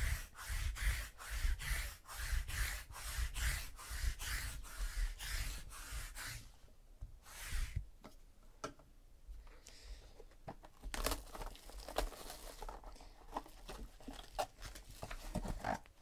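Fast, even rubbing strokes, about three a second, for the first six seconds. Then scattered clicks and light crinkling as a trading-card box is handled and its foil pack pulled out.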